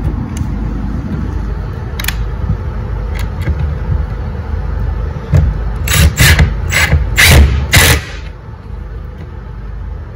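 Cordless impact driver driving a wood screw through a metal mounting bracket into a wood wall: about five short loud bursts of hammering in the last few seconds, after a stretch of low handling noise and a couple of clicks.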